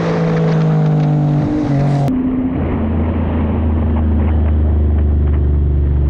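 Motor vehicle engine running steadily, its pitch shifting a little, with an abrupt cut about two seconds in to a lower, steadier engine tone.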